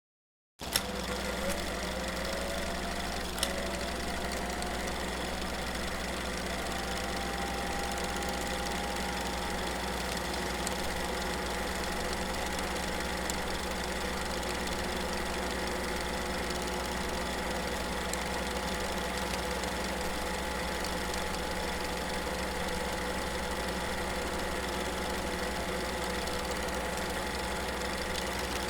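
Film projector switching on with a click and running: its motor whine rises in pitch over the first several seconds, then settles into a steady mechanical whirr, with an occasional click.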